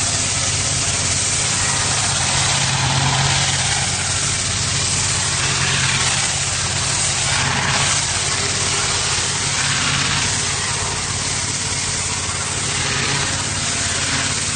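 Pressure washer running steadily: the engine's even hum under the hiss of the high-pressure water jet spraying a wall.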